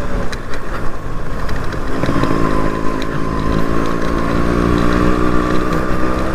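Yamaha RX two-stroke single-cylinder motorcycle engine running under way, its pitch rising steadily from about two seconds in as the bike picks up speed, with road and wind noise underneath.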